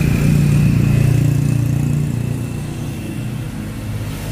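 A motor vehicle engine going past close by, loudest about a second in and then slowly fading as it moves away.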